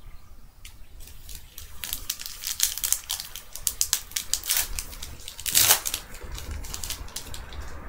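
Foil wrapper of a Panini Prestige football card pack crinkling and tearing as it is ripped open, a quick run of sharp crackles with the loudest rip a little over five and a half seconds in.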